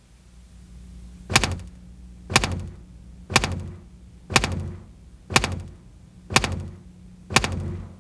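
Countdown sound effect of a broadcast tape slate: a sharp, knock-like click about once a second, seven in a row starting just over a second in, each dying away quickly, over a low steady hum.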